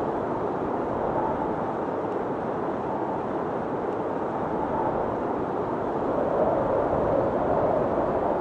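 Steady rushing wind of a thunderstorm, an even roar that swells slightly near the end.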